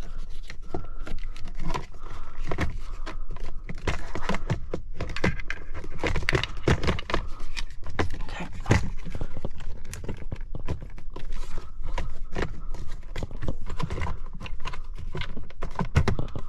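Hard plastic console parts and wiring being handled and fitted back into a car's centre console: a busy run of clicks, knocks and scrapes.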